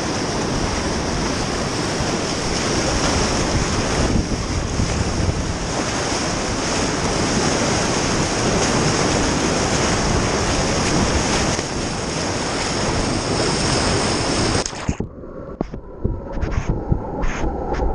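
Whitewater rushing and crashing around a kayak, a loud steady roar with wind noise on the microphone. About fifteen seconds in it cuts off suddenly to a muffled sound with irregular knocks as the boat is thrashed in the hole and the camera goes under water.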